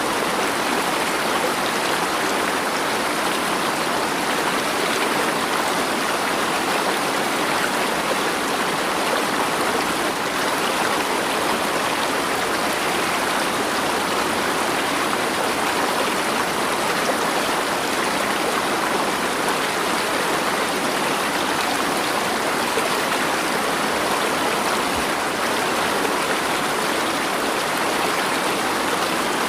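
Flowing water rushing steadily, an even hiss with no splashes, breaks or changes.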